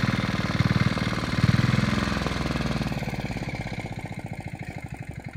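A small engine running steadily with a rapid, even beat, louder in the first half and fading toward the end.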